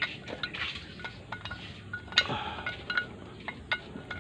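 Light metal clinks and taps of hand tools against motorcycle engine parts. About a dozen sharp clicks, several leaving a short metallic ring; the loudest comes a little past halfway.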